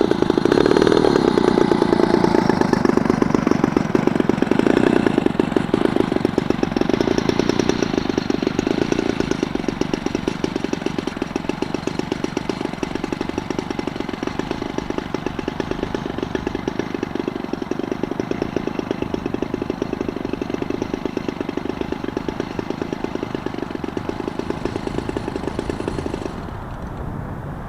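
Electric motor and propeller of a Sky Surfer Pro RC glider in flight, a steady buzz that slowly grows fainter, then drops off suddenly near the end.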